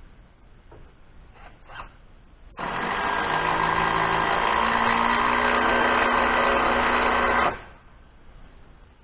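A small power tool's motor runs steadily for about five seconds, starting and cutting off sharply, with a slight rise in pitch partway through.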